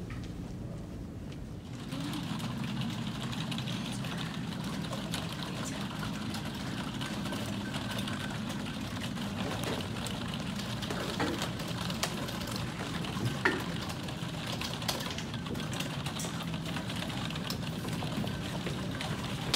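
Steady, machine-like room noise with a low hum and hiss, louder from about two seconds in, with a few faint clicks scattered through it.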